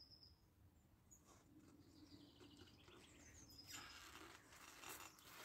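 Near silence, with faint soft rustling or handling noises in the second half.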